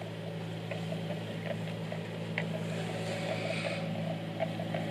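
A small engine running steadily nearby, giving an even low hum, with faint distant voices over it.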